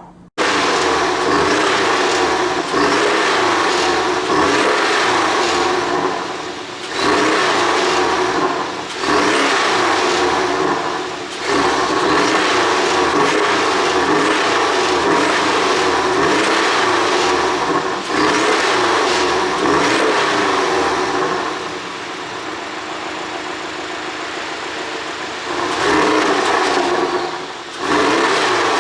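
Porsche 718 Boxster S turbocharged flat-four engine revved up and let fall again and again. There are sharp drops in revs several times and a steadier, quieter stretch about three quarters through. The exhaust is ECU-tuned to pop and crackle on the overrun.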